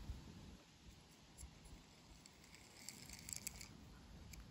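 Near silence, with a few faint light clicks, most of them about three seconds in, from a small die-cast toy car being handled.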